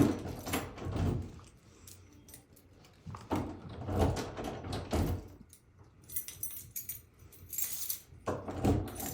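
A bunch of keys jangling in bursts, with clicks and knocks between short pauses.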